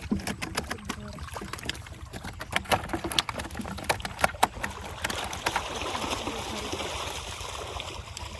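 Water splashing in a fish pond as fish are pulled in a net, with many sharp slaps and splashes at first, then a denser, steady splashing from about five seconds in.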